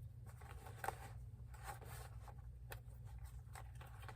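Soft rustling and scattered small clicks of everyday-carry gear being handled, with one sharper click a little under a second in, over a steady low hum.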